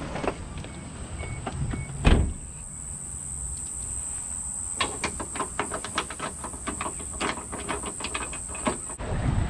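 A car door shuts with a single loud thump about two seconds in. From about halfway through, a boat-trailer winch ratchets in a quick run of sharp metallic clicks as the strap is worked to launch an aluminium dinghy, over a steady high-pitched insect drone that stops near the end.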